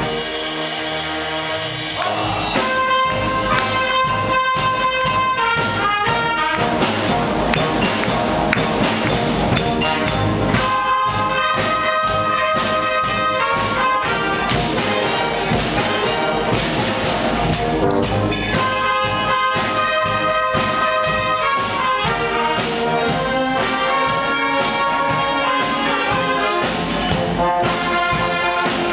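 Wind band of saxophones, trumpets and tuba playing: a held chord for about two seconds, then a rhythmic passage with a steady beat.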